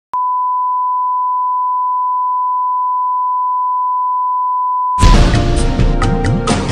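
Steady, unchanging 1 kHz test tone, the reference tone that goes with colour bars, cutting off about five seconds in as loud music starts.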